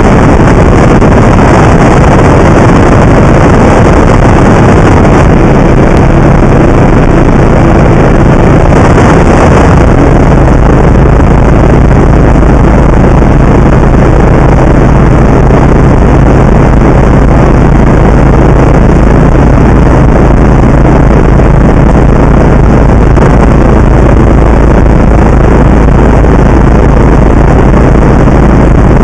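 Loud, steady drone of a single-engine light aircraft's piston engine and propeller heard from inside the cabin, mixed with wind rush. The engine note shifts slightly about ten seconds in.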